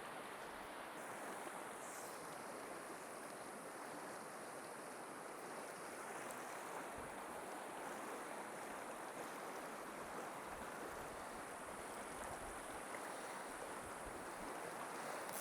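Faint, steady rushing of river water flowing over rocks.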